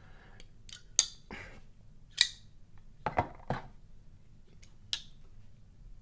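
Titanium framelock flipper knives flipped open and shut, the blade snapping into lockup with about five sharp clicks. Three are bright and metallic and two, about halfway through, are duller and lower: the two knives lock up with different sounds, one a dull, muffled click and the other a more hollow, metallic one.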